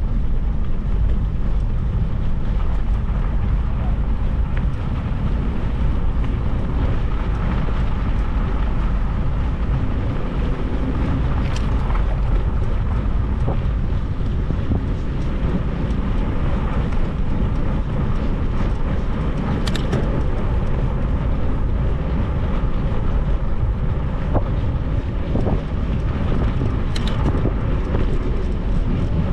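Wind buffeting a moving camera's microphone: a steady low rumble, broken by a few brief clicks or rattles.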